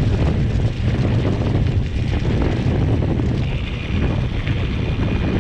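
Heavy wind buffeting on an action camera's microphone while riding a mountain bike, a loud steady low rumble. A higher hiss joins about three and a half seconds in.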